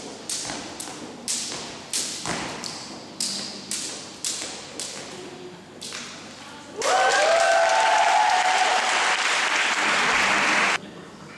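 Jump rope slapping the hall floor during a freestyle routine, about two strikes a second for the first six seconds. Then comes a loud burst of clapping and cheering for about four seconds, which cuts off abruptly.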